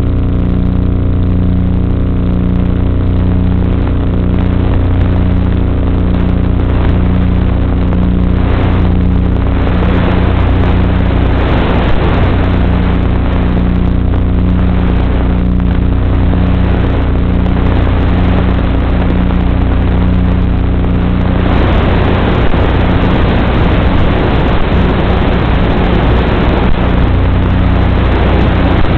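Electric motor and propeller of an FPV aircraft running at steady cruise throttle, a constant drone mixed with wind rush on the onboard microphone. About 21 seconds in the motor tone drops back as the throttle is eased, and the wind rush takes over.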